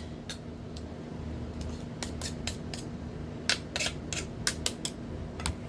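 Irregular sharp clicks and clacks of a kitchen gadget's parts being handled and taken apart, about a dozen, coming faster in the second half.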